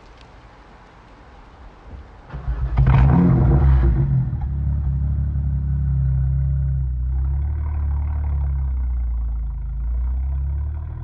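BMW 1M Coupe's N54 twin-turbo inline-six, breathing through a full Akrapovic titanium exhaust, starts up about two seconds in. The revs flare loudly for a moment, then the engine settles into a steady, deep idle.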